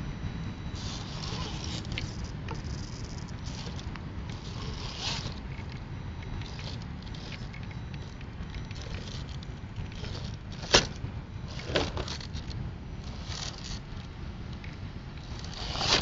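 Axial SCX10 radio-controlled rock crawler climbing over rough rock: its tyres scrape and crunch on stone and grit, with scattered clicks. A sharp knock comes about two-thirds of the way in and a louder scrape comes at the end, all over a steady low rumble.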